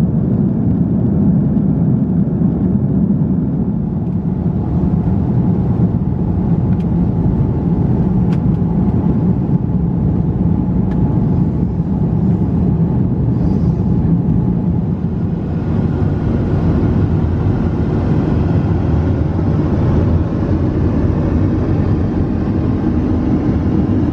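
Airbus A330-300 cabin noise in cruise: the steady low drone of the engines and rushing airflow. A brighter hiss joins about halfway through.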